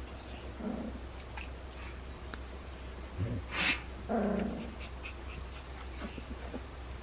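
Two-and-a-half-week-old puppies making small grunts and growly noises as they squirm. The clearest is a short pitched grunt about four seconds in, just after a brief, sharp puff of noise.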